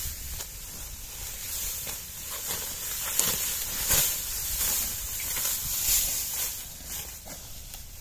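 Dry, ripe wheat stalks rustling and crackling as they are cut by hand and gathered into a bundle, in an irregular run of crisp snaps and crunches.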